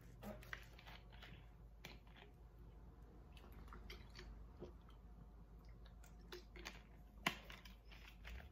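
Faint mouth and swallowing sounds as tablets are taken and washed down with drinks from a bottle, with small clicks of the bottle being handled. One sharper click comes about seven seconds in.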